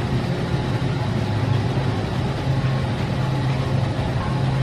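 Steady low hum over a constant rushing noise, typical of a store aisle's refrigerated display cases and ventilation.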